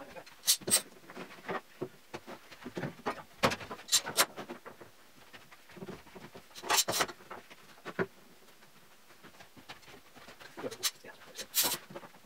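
Bar clamps being set and tightened along a glued-up double strip of plywood: irregular clicks, clacks and knocks of clamps against the wood.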